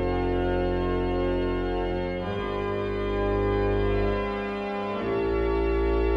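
Organ music: slow, sustained chords held over a bass line, changing chord about two seconds in and again about five seconds in, where a deep bass note returns.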